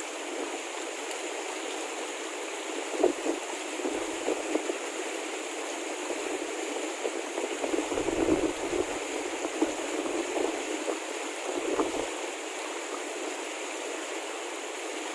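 Shallow mountain river running over rocks: a steady rush of flowing water, with a few brief low bumps about 3, 4, 8 and 12 seconds in.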